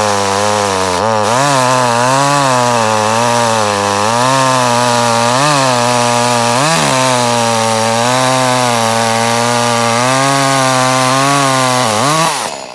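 Echo CS-310 two-stroke chainsaw running near full throttle while cutting a block of wood, its pitch wavering under load but holding steady without cutting out, on a newly fitted spark plug. Near the end the engine winds down and stops.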